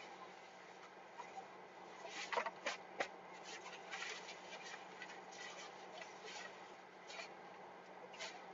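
Faint rustling and light clicking from people handling clothing and gear, over a quiet outdoor background hiss with a low steady hum.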